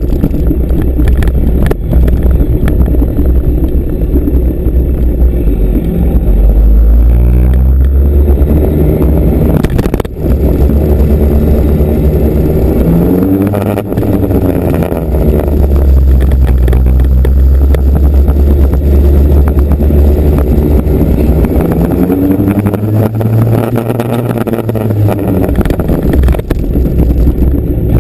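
Motorcycle engine running under way, its pitch climbing as it revs and dropping back several times, as when riding through the gears.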